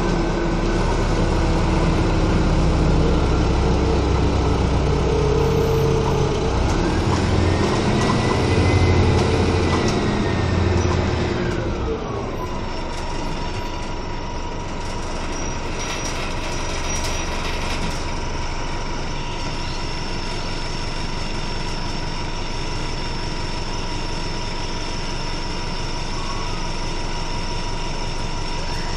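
A 1996 Nova Bus RTS transit bus heard from inside the cabin: engine and driveline running loud, with a whine that rises and then falls in pitch. About twelve seconds in, the noise drops to a steadier, quieter hum with a constant high tone, as at idle.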